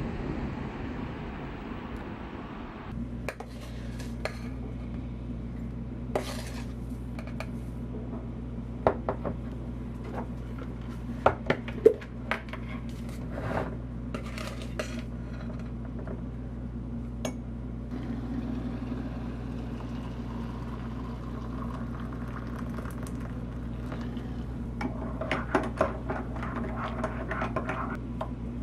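Metal spoon clinking against a ceramic mug and a tin as drink mix is scooped in, in scattered sharp taps, then a quick run of clinks near the end as the hot chocolate is stirred. A steady low hum runs underneath.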